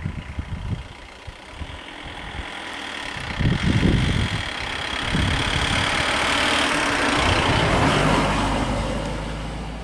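Jeep engine running as the vehicle drives past close by, swelling to its loudest in the middle and easing off near the end, with a low steady engine hum underneath from about eight seconds in.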